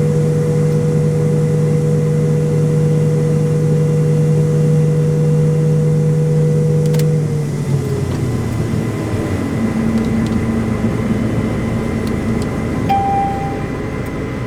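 Combine harvester running with a steady hum whose pitch glides down about seven seconds in and settles lower as the machine winds down. A brief high tone sounds near the end.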